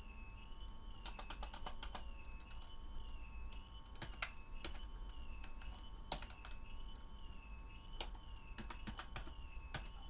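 Typing on a computer keyboard: a quick run of keystrokes about a second in, then scattered single key clicks.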